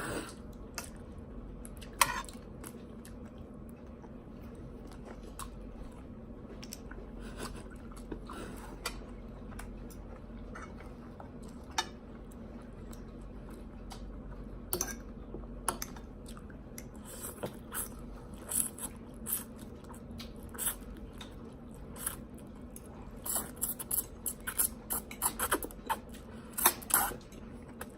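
Close-miked eating: chewing, crunching and bites of hibachi food, with scattered clicks of utensils against dishes, coming thicker in the last few seconds. A steady low hum runs underneath.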